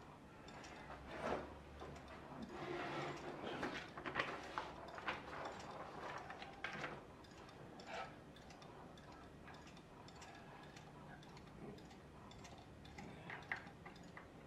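Faint, irregular light clicks and ticks from a small wooden magnet-wheel model and its lever mechanism as the wheel turns and a screwdriver is handled around it. Most of the clicks come in the first half; a few more come near the end.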